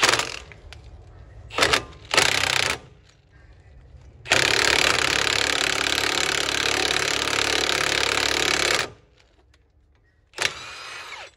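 Cordless impact wrench hammering a lug nut down over washers, pulling a new wheel stud into the hub flange. It goes in a few short bursts, then one long run of about four and a half seconds, then a last, weaker burst near the end.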